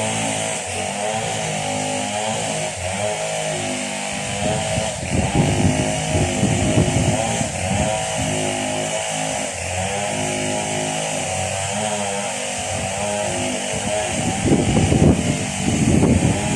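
Two-stroke chainsaw running steadily while cutting coconut tree trunks into lumber, its engine pitch stepping up and down as the saw is throttled. There is a louder, rougher stretch about five seconds in and again near the end.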